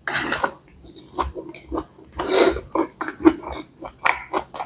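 Close-miked eating of pad see ew (soy-sauce stir-fried rice noodles with pork and Chinese kale): wet chewing and smacking clicks, with two longer slurping noises, one near the start and one about halfway through.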